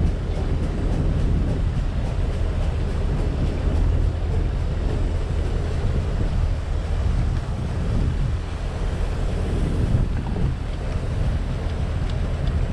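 A fishing boat's engine running steadily, a constant low hum, under wind buffeting the microphone.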